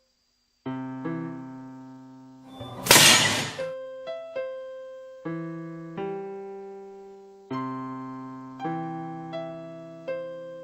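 Slow solo piano music, notes and chords struck about once a second and left to ring. About three seconds in, a loud, noisy crash lasting about a second rises over it.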